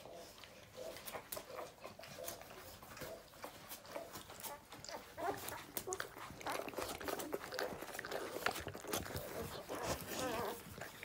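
Newborn puppies nursing: wet suckling and smacking clicks mixed with small squeaks and grunts, busier and louder through the second half.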